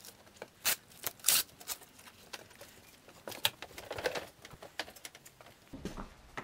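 Wooden canvas stretcher frames being handled and stacked: a string of short, sharp knocks, clacks and scrapes, with a duller bump and rumble near the end.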